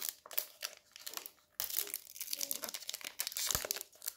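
Foil wrapper of a Pokémon card booster pack crinkling and tearing as it is pulled open by hand, with a short pause about a second and a half in.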